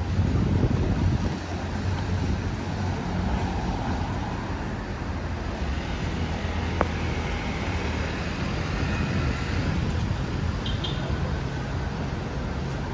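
City street traffic noise: a steady hum of vehicle engines and road noise, with one sharp click about seven seconds in.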